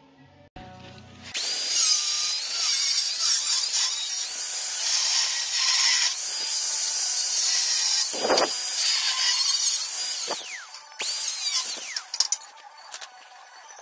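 Grinder with a thin cut-off wheel (zip disc) cutting through a steel cross member, its motor whining high over the cutting noise. It starts about a second and a half in, spins down near ten seconds, then runs briefly once more before stopping.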